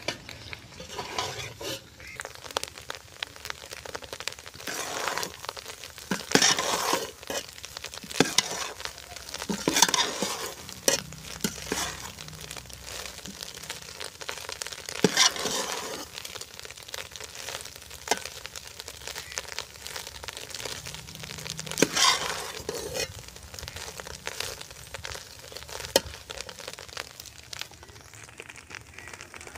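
A perforated metal spoon stirring and scraping crumbly buffalo-colostrum curds as they roast in ghee in a metal pot. There is a low sizzle of frying, with irregular scrapes of the spoon against the pot.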